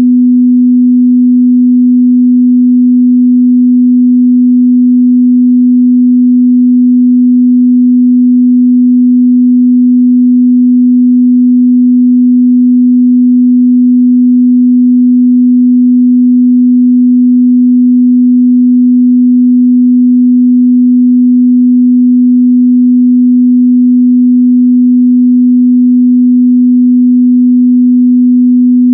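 Steady pure sine-wave test tone at 248 Hz, a constant mid-bass hum that holds one pitch and level throughout.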